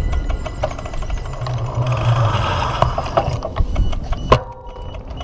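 London Overground Class 378 electric train standing at the platform after arriving: a low hum and a hiss of air from the train, then a single sharp clunk about four seconds in, after which it goes quieter.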